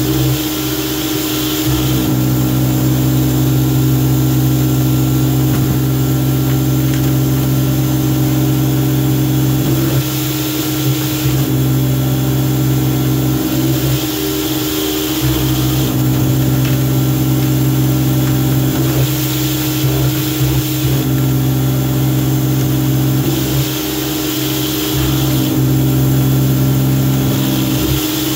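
Greenworks 2000 psi electric pressure washer running steadily under load, its pump and motor humming, with the hiss of the surface cleaner's spinning spray jets washing plastic trays inside a PVC tray-washer box. The spray hiss swells and eases every few seconds.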